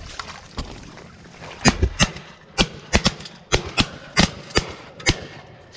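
A rapid volley of shotgun fire from several guns: about a dozen sharp reports in quick succession, some in close pairs and triplets, as hunters shoot at geese coming in over the decoys.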